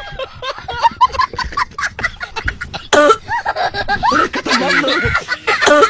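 A comic cough that sounds like a hen clucking: a quick string of short, sharp clucks.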